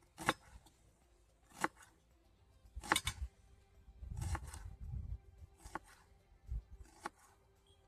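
Kitchen knife cutting shallots into small pieces against a board: six sharp taps, about one every second and a half, with a low rumble around the middle.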